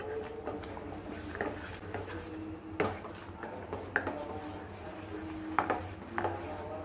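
Steel ladle stirring thick payasam in a stainless steel pan, knocking and clinking against the metal sides at irregular intervals, about eight times.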